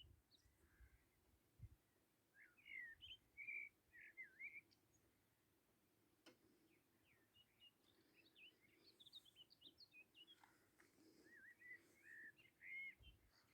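Faint birdsong: several small birds chirping and warbling in short, quick phrases, with one sharp click about six seconds in.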